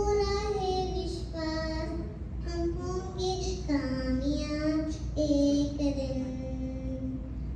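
A young girl singing solo into a stage microphone: a slow melody with long held notes, the longest near the end.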